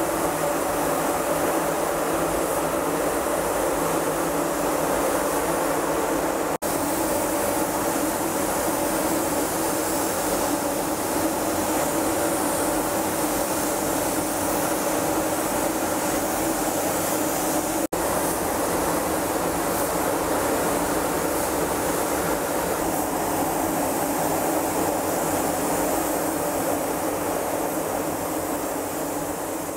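Steady, loud workshop machine noise with a strong hiss, cut off sharply twice for an instant and fading out near the end.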